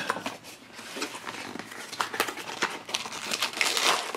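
A cardboard blind box being opened and its foil bag pulled out and crinkled in the hands: scattered crackling and rustling that gets busier near the end.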